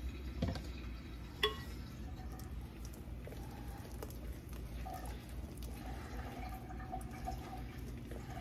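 Cake batter being stirred by hand with a whisk in a mixing bowl: faint wet stirring, with a couple of light clicks in the first two seconds.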